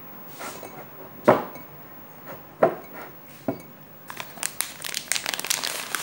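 A metal spoon knocks against a glass mixing bowl about four times while mashed mung bean filling is stirred. From about four seconds in, a plastic bag of flour crinkles as it is handled and opened.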